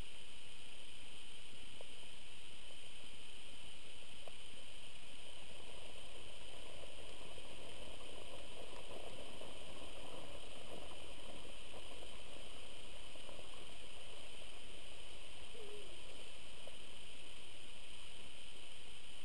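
Steady hiss of a trail camera's microphone, with faint rustling and thudding of a herd of red deer stags running through snow that swells through the middle and fades out.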